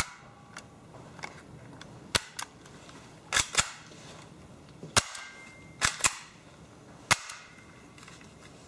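HFC HA121 spring-powered airsoft pistol being cocked and fired over and over: a string of sharp snaps, some single and some in quick pairs, a second or two apart.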